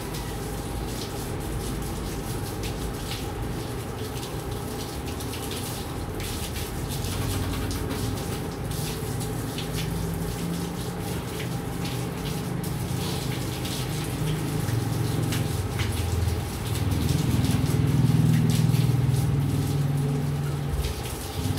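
Garden hose spraying a steady stream of water onto a mountain bike's frame and wheels to rinse it. A low rumble builds through the second half and is loudest a few seconds before the end.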